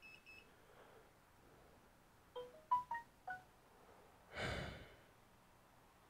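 Faint electronic beeps: three short high beeps at the start, then a quick run of about six short notes at different pitches, like a phone ringtone or notification jingle. A short breath follows.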